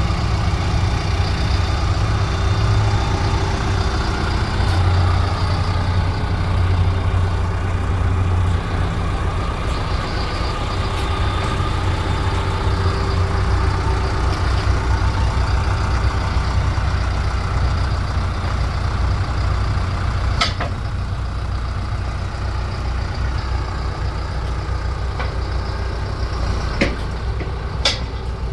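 John Deere 310K EP backhoe's four-cylinder diesel engine running steadily, with a few sharp metallic clanks near the end.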